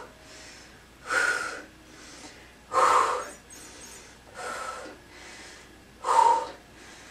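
A woman breathing hard with exertion while holding a seated V-sit ab hold: loud, breathy breaths about every second and a half, with fainter breaths in between.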